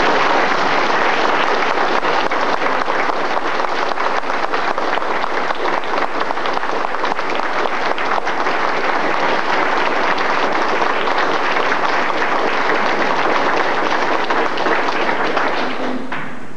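Audience applauding, a dense round of many hands clapping that dies away near the end.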